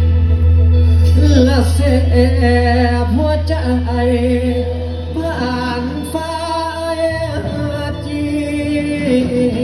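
Live band playing the introduction to a Thai mor lam–style song through a PA system. A heavy steady bass sits under it, and a wavering lead melody comes in about a second in.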